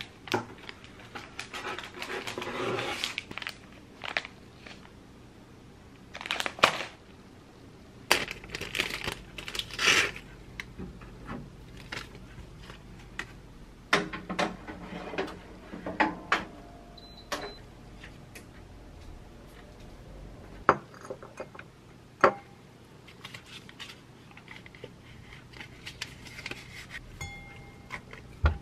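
Kitchen handling sounds in a series of short takes: plastic packaging rustling and items handled over a cardboard box, then a wire tray sliding into a countertop oven with clicks and clatter, a couple of short electronic beeps, and dishes clinking on a counter.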